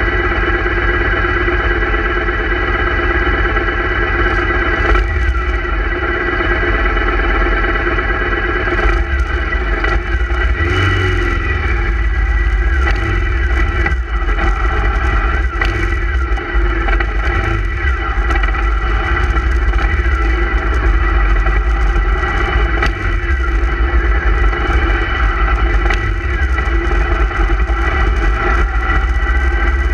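Motorcycle engines running as a group of bikes pulls away and rides along the street, heard from a camera mounted on one of the motorcycles, with a steady low rumble throughout.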